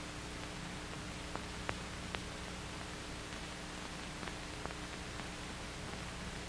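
Steady hiss and low hum of an old optical film soundtrack, with a few faint scattered clicks of crackle, the sharpest about one and a half to two seconds in.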